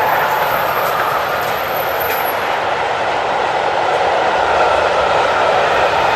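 A train passing close by: a steady, loud rolling noise of wheels on the rails with a few faint clicks, and a faint high whine in the first couple of seconds.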